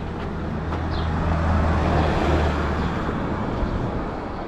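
A motor vehicle driving past: its low engine hum and tyre noise swell to a peak about two seconds in, then fade away.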